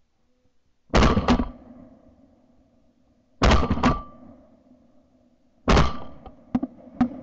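Three shotgun shots at flying geese, about two and a half seconds apart, picked up by a ShotKam camera mounted on the gun. Each shot is a sharp blast with a short fading tail, and two lighter clicks follow near the end.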